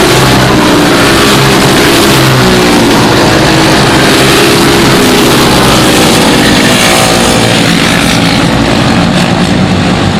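Several four-stroke Briggs & Stratton Animal kart engines racing together at high revs, their overlapping engine notes rising and falling as the karts run past.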